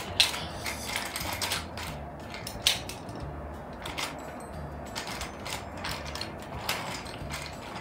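Plastic clicks and clatter as a Plarail toy train's cars are handled and pushed along plastic track, with a few sharper clicks a second or more apart over a low, uneven rumble.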